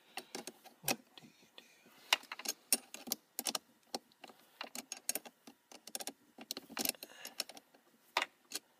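Irregular sharp metal clicks and clinks as a hand fits battery-charger ring terminals onto a car battery's terminal post.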